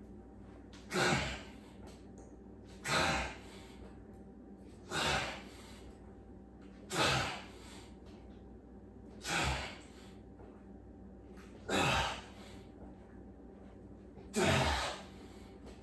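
A man's forceful exhalations while bench-pressing a 200-pound barbell, one hard breath out with each rep. Seven sharp breaths about two seconds apart, coming a little slower toward the end as the reps get harder.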